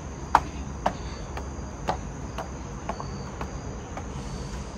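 Footsteps climbing wooden stair steps, about two a second, over a steady high-pitched drone of insects.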